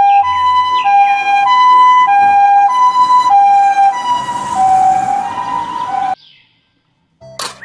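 Japanese ambulance's two-tone hi-lo siren, switching between a high and a low note about every 0.6 seconds. It cuts off suddenly about six seconds in, and a short click follows near the end.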